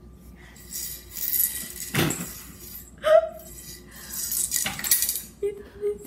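Rustling and scraping of a cat tussling with a feather toy on a string on a tile floor, in two spells, with a sharp knock about two seconds in.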